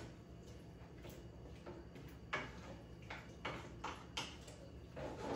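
Wooden spoon knocking and scraping against a skillet while stirring potatoes and leeks in chicken stock: a run of faint, irregular clicks, roughly two a second.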